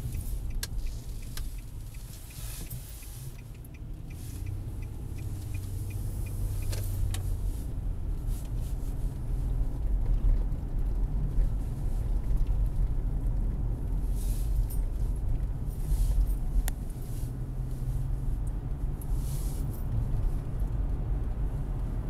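Car driving along a road, heard from inside the cabin: a steady low rumble of engine and tyres, briefly easing a few seconds in, with a few light clicks and knocks.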